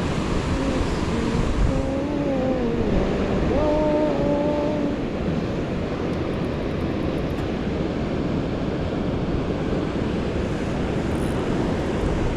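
Steady rush of water pouring through a spillway. For the first few seconds a pitched, wavering voice-like tone rises and falls over it.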